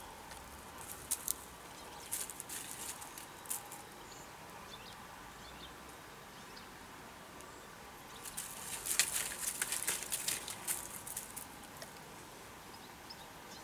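Dry leaf litter and twigs crackling and rustling under a Ratonero Bodeguero Andaluz dog's paws and snout as it sniffs along the ground. It comes in short scattered spells, with a denser flurry about eight seconds in.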